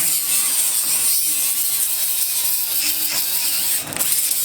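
Air-powered die grinder running at high speed with a Norton Blaze abrasive, grinding steel with a steady hiss. It dips briefly near the end and picks straight back up.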